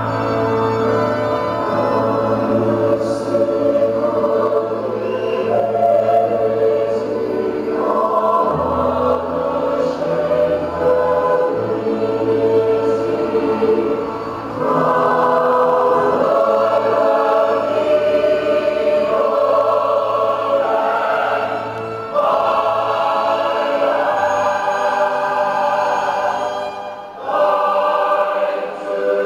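Choir of children singing sustained, held notes over a musical accompaniment with a steady bass line.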